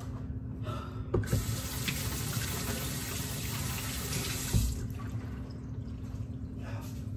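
Kitchen faucet running for about three and a half seconds, starting about a second in and shutting off near 5 s, with a knock as it starts and a low thump shortly before it stops.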